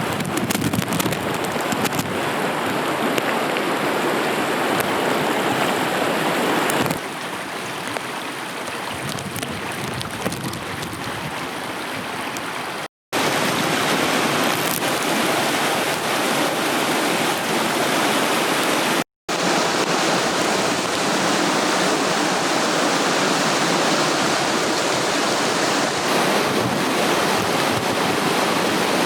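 Fast-flowing floodwater rushing steadily, with the sound cutting out for an instant twice.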